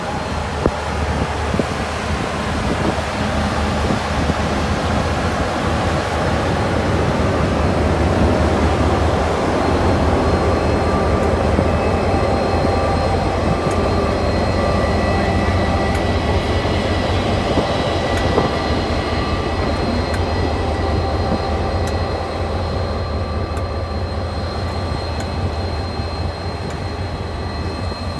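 DFB-class diesel-electric locomotive running with a steady low engine drone as the passenger train moves slowly past the platform, with a few faint high whines above it.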